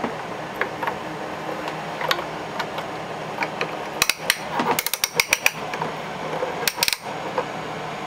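Wooden toy kitchen's doors and fittings being handled: a series of light clicks and knocks, with a quick cluster about halfway through and a couple more near the end.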